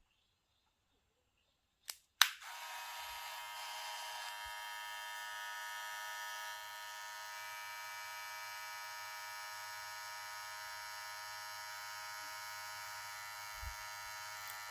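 Daling electric hair clipper switched on with two clicks about two seconds in, then its motor running with a steady high-pitched buzz at about 6,300 RPM.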